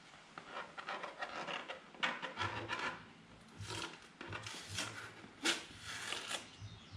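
Masking tape being peeled off a freshly spray-painted welding helmet, in a series of short crackling rips.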